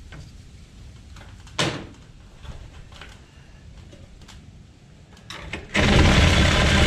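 Scattered knocks and clatter of work on wooden wall framing, the loudest a single knock under two seconds in. Near the end a loud power tool starts abruptly and runs steadily.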